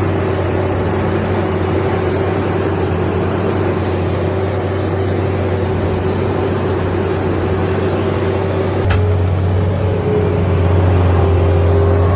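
An engine running steadily at a constant speed, with one sharp click about nine seconds in.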